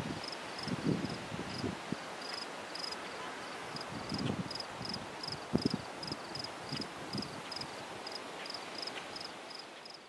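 An insect chirping steadily in a grassy meadow, short high chirps at about three a second, over wind in the grass and low gusts of wind on the microphone. Everything fades out at the end.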